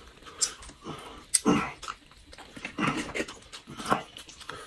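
Close-miked eating sounds: lips smacking, sucking and chewing on grilled shrimp, in irregular bursts with sharp wet clicks.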